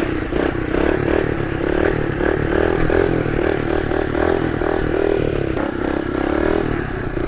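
2011 Kawasaki KLX110 pit bike's small air-cooled four-stroke single-cylinder engine running while being ridden, heard from the rider's seat; the engine note wavers up and down with the throttle.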